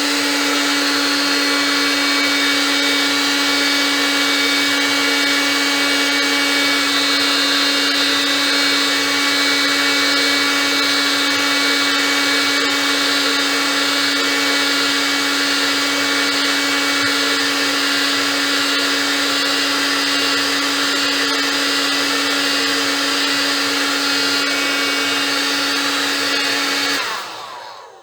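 Electric heat gun running steadily, its fan motor blowing with a constant hum, warming the steering wheel's plastic rim to soften it; it is switched off near the end and winds down.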